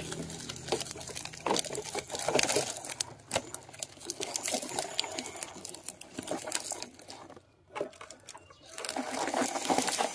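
Plastic toy trucks rolling over gritty ground and plastic sheeting, the wheels crunching and rattling with many small clicks, with a brief lull about seven and a half seconds in.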